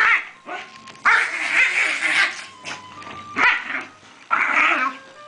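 Excited puppies barking and yapping as they play: one long burst about a second in, then two shorter ones near the end.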